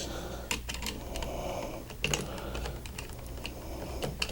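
Irregular small clicks and taps of a screwdriver and wire on a wall switch's terminal screw as it is tightened down on a wire loop.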